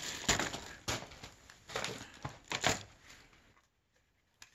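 Rustling and light clicks of a sled harness's nylon straps and plastic buckle being handled: several short clicks in the first three seconds, a brief lull, then two more clicks near the end.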